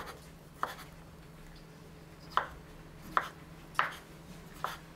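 Knife slicing black olives on a wooden cutting board: about six sharp knocks of the blade meeting the board, irregularly spaced.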